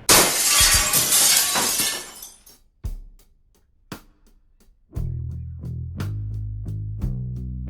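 A sudden loud crash of glass shattering that dies away over about two seconds. Plucked guitar and bass music starts about five seconds in.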